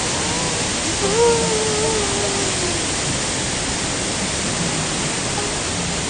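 Maruo Falls, a 23-metre waterfall, and the white-water stream below it: a steady rush of falling and tumbling water. A brief faint tone about a second in slides down in pitch.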